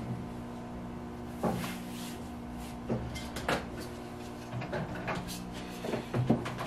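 A few short knocks and clacks from handling a manual screen printing press, coming closer together near the end, over a steady hum.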